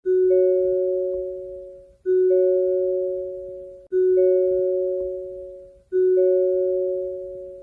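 Hyundai car door-open warning chime, the signal that a door is open: a low note with a higher note joining a moment later, both ringing and fading out, repeated about every two seconds, four times.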